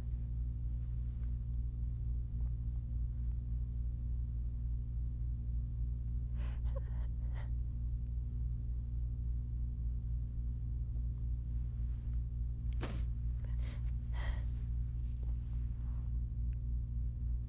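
A person's short breathy gasps about six and a half seconds in, then a sharp tickle-induced sneeze about thirteen seconds in, followed a second later by another breathy burst. A steady low hum runs underneath.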